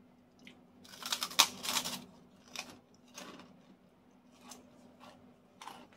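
Crisp kerupuk crackers being bitten and crunched: a dense run of crunching about a second in, then a few scattered single crunches while chewing, over a faint steady hum.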